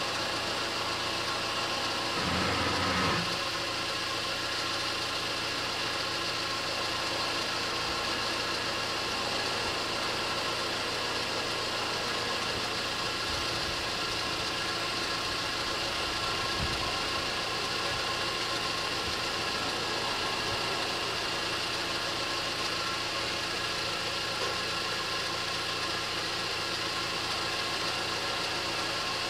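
Level crossing warning bell ringing steadily while a car engine idles close by. The engine is louder for about a second, around two to three seconds in.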